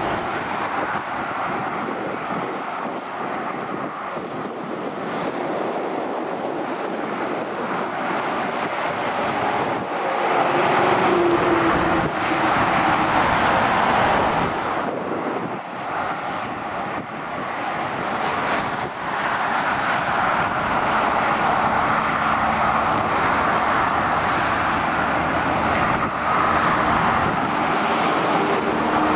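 Road traffic passing close below: lorries and cars on a dual carriageway, a continuous rush of tyre and engine noise that swells and eases as each heavy truck goes by.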